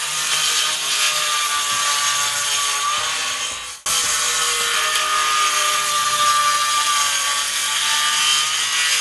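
Corded circular saw running and cutting through the roof deck and underlayment along a chalk line, a steady whine over the cutting noise as it slots the deck for an intake vent. The sound sinks and breaks off just before four seconds in, then comes straight back at full level.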